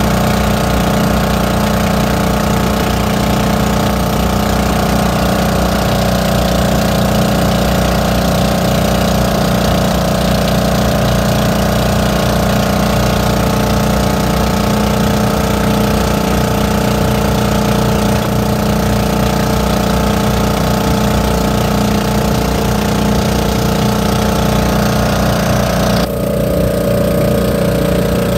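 Outrigger boat's engine running steadily under way, with water and spray rushing along the hull; near the end the rushing hiss drops away sharply, leaving the engine.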